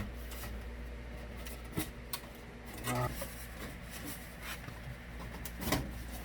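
A few light knocks and clicks over a steady low hum.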